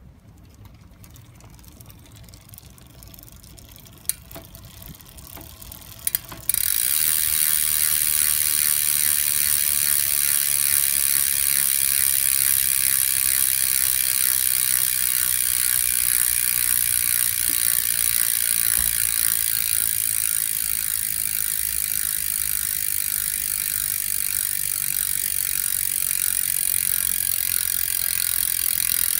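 Freehub of a 2016 Campagnolo Bora Ultra 50 rear wheel ratcheting as the wheel freewheels, its pawl clicks so fast they merge into a loud, steady buzz. It sets in suddenly about six seconds in, after a couple of faint clicks.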